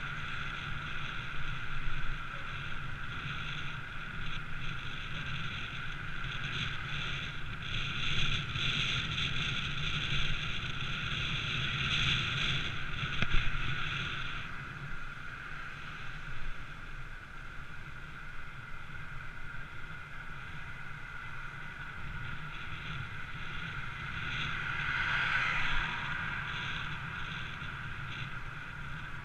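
Motorbike riding through city traffic: wind rushing over the microphone with the engine running underneath and a steady high whine. It gets louder for several seconds about a third of the way in and again briefly near the end.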